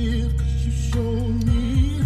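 Background worship music: sustained chords over a steady low bass, with a long held note.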